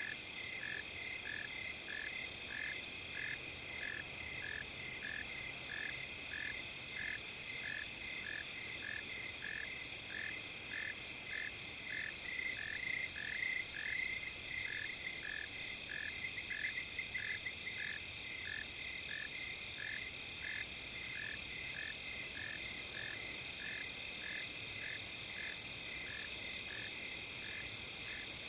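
Autumn insect chorus in the rice terraces: several steady high trills overlapping, with a short, lower chirp repeating evenly about once every 0.7 seconds.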